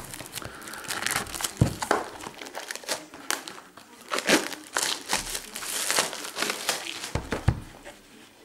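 Plastic shrink wrap crinkling and crackling as it is torn and pulled off a cardboard trading-card box, with a few knocks from the box being handled.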